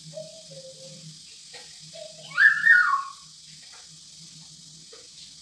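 A loud whistle-like call a little over two seconds in, rising and then falling in pitch, after a few fainter short whistled notes.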